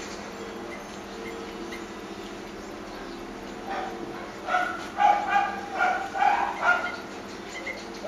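A quick series of short pitched animal calls, about three a second, starting about halfway through, over a steady low hum.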